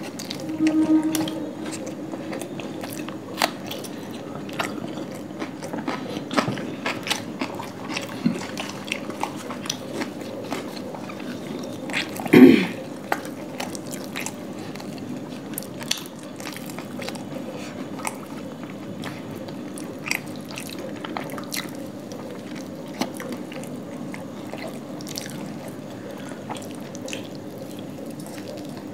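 Close-up eating sounds of two people eating flaky laccha paratha and chicken curry by hand: chewing and biting with many small mouth clicks and smacks. One louder sound stands out about twelve seconds in.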